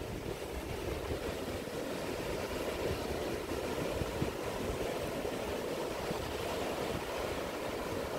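Ocean surf breaking and washing up a sandy beach in a steady wash, with wind buffeting the microphone.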